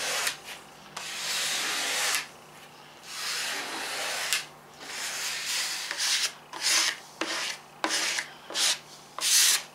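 Hand and then a plastic squeegee rubbing over the paper transfer sheet of a wet-applied vinyl decal on fiberglass trailer siding, pressing out the application water. A few long rubbing strokes give way to shorter, quicker strokes in the second half.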